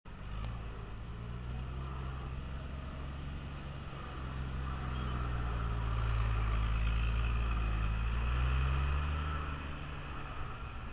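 Engine of a large Hyster forklift running at a steady speed as the forklift drives past, getting louder as it comes close about halfway through and easing off near the end.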